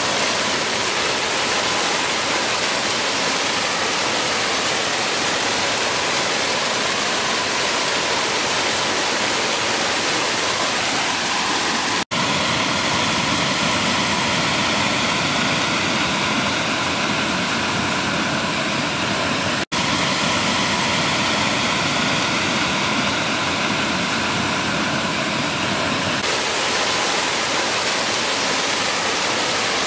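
Small woodland waterfalls pouring over rock ledges into a rocky stream: a loud, steady rush of falling and splashing water. The sound cuts out for an instant twice, and its tone shifts slightly near the end as a different fall takes over.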